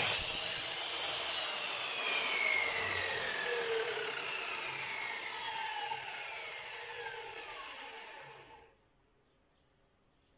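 Miter saw's motor and blade spinning down after the trigger is released. Its whine falls steadily in pitch and fades, dying out about nine seconds in.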